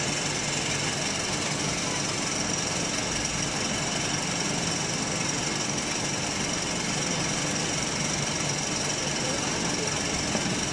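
Hydraulic vertical textile baler running steadily: a continuous machine drone with a constant high whine.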